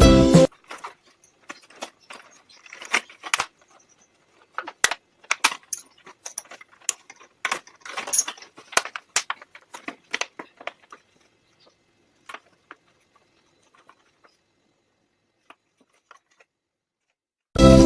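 Scattered sharp clicks, taps and light rattles of hands working materials, dense for about ten seconds and then only a few sparse ticks. Background music cuts off just after the start.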